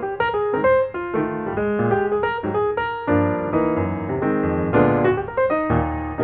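Background piano music: a melody of quick notes over chords.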